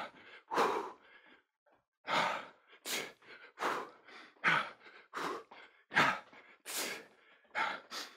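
A man breathing hard through his mouth as he catches his breath after sprinting, with a short noisy breath about every second. There is a brief pause about a second in.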